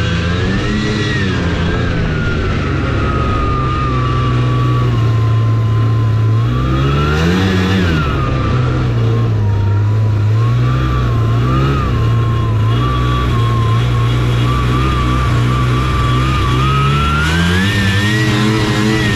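Taiga Varyag 550 snowmobile's two-stroke engine running under way. Its pitch eases down, rises in a brief rev about seven seconds in, holds steady, then climbs again near the end, with a whine rising and falling along with it.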